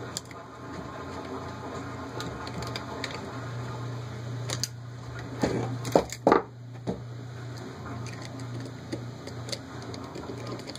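Small metal clicks and taps of a screwdriver and pliers working on the nuts and standoffs of an aluminium motor mount. About five seconds in come a few louder knocks and clatter as the assembly is handled. A steady low hum runs underneath.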